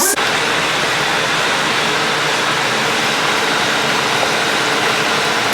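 Heavy rain pouring down in a steady, loud hiss during a storm.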